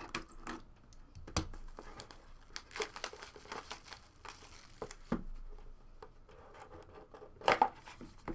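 Plastic wrapping on a trading-card box or pack crinkling and tearing as it is opened by hand, with scattered rustles and light taps of card handling. The loudest rustles come near the end.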